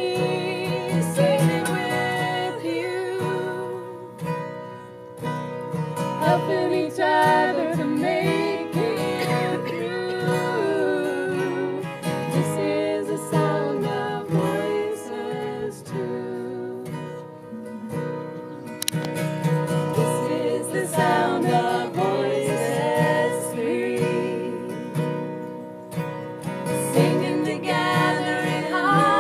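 Acoustic guitar strumming a steady rhythm while women's voices sing a slow song in close harmony.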